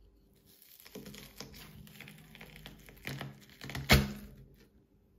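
Knife cutting through the rind of a seedless watermelon: crisp crunching and crackling as the blade works around the top, with a loud crack about four seconds in.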